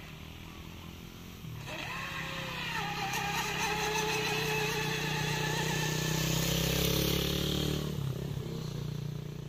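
Electric RC speedboat with a Racerstar brushless motor on a 3S battery running flat out across the water: a steady motor sound with hiss that swells from about a second and a half in, peaks as the boat passes, and falls off sharply about eight seconds in.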